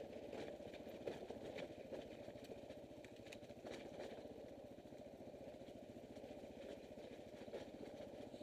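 Motorcycle engine running steadily at low revs as the bike crawls over a rocky dirt track, with scattered sharp clicks and knocks on top of it.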